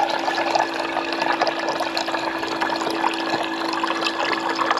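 Small battery-powered water-dispenser pump running with a steady hum, its stream of water splashing into a metal mug.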